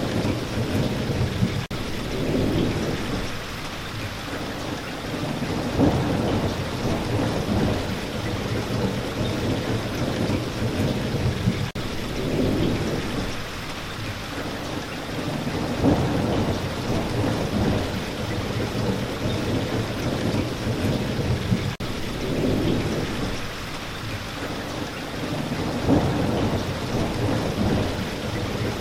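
Steady rain falling, with low rumbles of thunder swelling and fading about every ten seconds.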